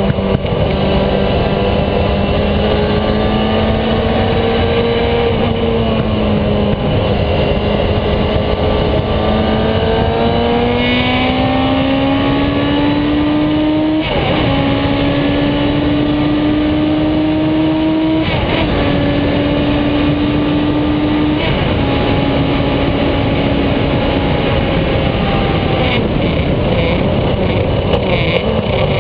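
Radical sports-racing car's engine at high revs, heard onboard, pulling hard with its note climbing steadily and three quick upshifts, each a sudden drop in pitch, in the second half. Near the end the revs fall away.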